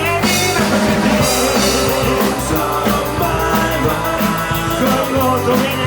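Rock band playing live: drum kit with a steady cymbal beat under electric guitar and held notes, in the gap between sung lines of the chorus.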